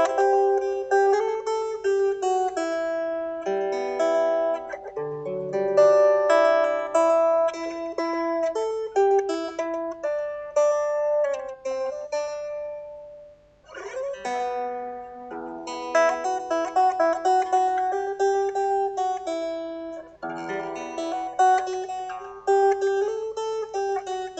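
Solo guitar improvisation: notes and chords picked and left to ring over one another, with a brief pause a little over halfway through before the playing resumes.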